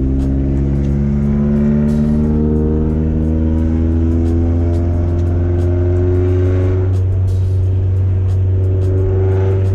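Porsche 944's naturally aspirated inline-four accelerating under way through a straight-through Lindsey Racing exhaust with no catalytic converter or mufflers. The note climbs steadily for about seven seconds, then drops at a gear change and holds steady, over a constant low drone.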